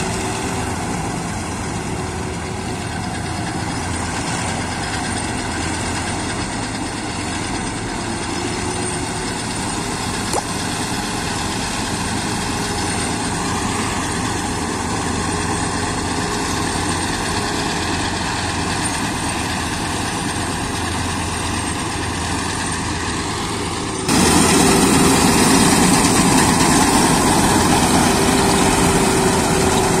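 HIND combine harvester running steadily as it cuts standing wheat, its engine and harvesting machinery making a continuous mechanical drone. The sound jumps suddenly louder about three-quarters of the way through and stays louder, with the machine close by.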